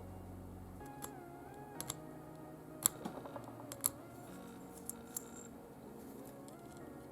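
Soft background music with a steady bass line, over which light, sharp ticks come at irregular intervals: a small hand file catching against the axle end of a diecast toy car.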